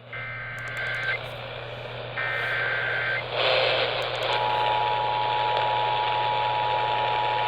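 Emergency Alert System tones heard over AM radio: two bursts of the SAME digital header's data tones, each about a second long and a second apart, then about four seconds in the steady two-tone EAS attention signal starts and holds, over radio static and a low hum. The tones announce a severe thunderstorm warning.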